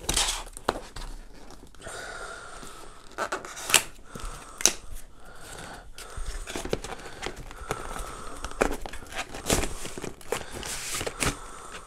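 Cardboard packaging being opened and handled: a retail box's flaps and inner cardboard box scraping and sliding against each other, with rustling and irregular sharp clicks and taps.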